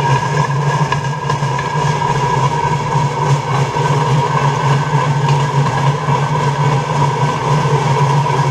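A pedal-powered rail trolley rolling along the track, its steel wheels on the rails making a steady rumble with a constant higher tone above it.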